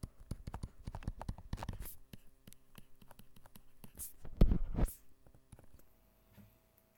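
Stylus handwriting on a digital writing surface: quick taps and short scratching strokes as an equation is written, then one louder, half-second stroke about four and a half seconds in. The writing sounds stop about six seconds in.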